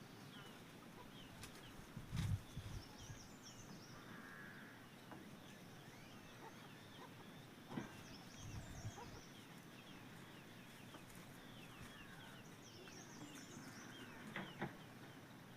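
Faint birdsong: small birds chirping over and over, with a few dull low thumps about two seconds in and again around eight seconds.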